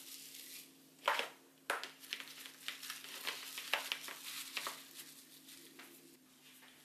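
Plastic cling film crinkling and rustling as gloved hands handle wrapped portions of fish paste and set them into a plastic container, with a knock about a second in and a run of irregular crackles that dies away after about five seconds.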